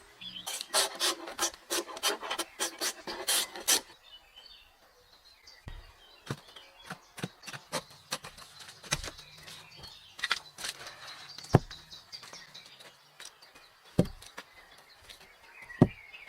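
Wood being scraped or rasped by hand: a quick run of strokes, about four a second, for the first three and a half seconds, then scattered single knocks and taps.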